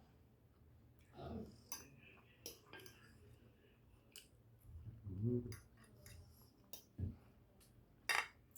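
Eating sounds: a fork or spoon clicking and scraping against a plate in scattered short strokes, the sharpest about seven and eight seconds in, with a brief low mouth sound about five seconds in.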